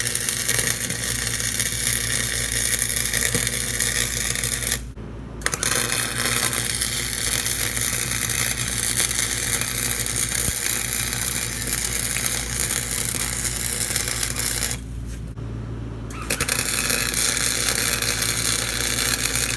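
Arc welder crackling steadily as a steel patch is welded onto a worn-through lawnmower deck. The arc stops sharply twice, briefly about five seconds in and for over a second near the middle, while the welder's low hum carries on.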